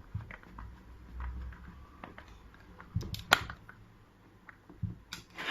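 Light clicks and taps of hand tools and metal lock hardware as a push-button door lock is screwed onto a door, with a sharper click about three seconds in and a couple more near the end.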